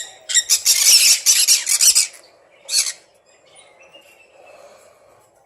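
Pet green-cheeked conures squawking: a fast run of loud, harsh squawks for about two seconds, one more squawk just before three seconds in, then only faint chirps.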